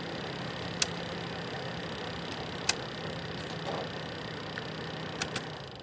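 BLACK+DECKER BHDC201 portable space heater running, a steady fan rush with a low hum, called very loud and annoying. Sharp clicks come about a second in, again near three seconds, and twice in quick succession near the end.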